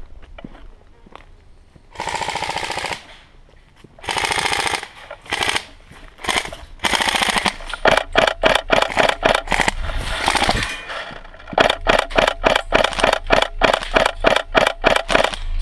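Airsoft guns firing: two bursts of full-auto fire, then shorter bursts, then a long rapid string of sharp shots at about five a second.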